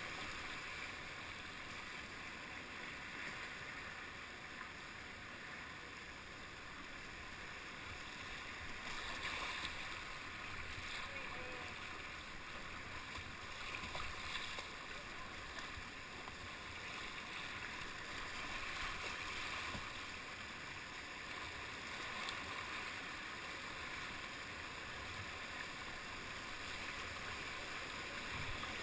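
Rushing whitewater of a river rapid around a kayak, a steady wash of water noise with occasional splashes from paddle strokes.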